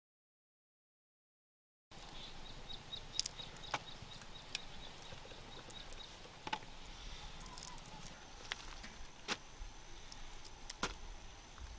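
Dead silence for about two seconds, then faint rural background ambience. Scattered light clicks run through it, with a short run of quick high ticks, about five a second, and a thin steady high tone that sets in about eight seconds in.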